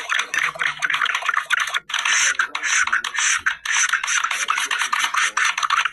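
Rapid, dense scratching or rasping: many quick small scrapes a second, with a short break about two seconds in.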